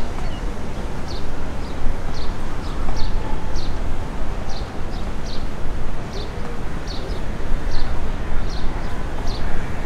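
Steady low rumble of a Boeing 777-300ER's GE90 jet engines as the airliner rolls out on the runway after landing, with a small bird chirping about twice a second.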